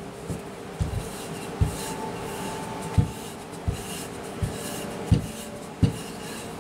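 Wooden rolling pin rolling out pie crust dough on a floured countertop: soft rubbing strokes, each with a dull knock, about eight in all, one every half second to a second.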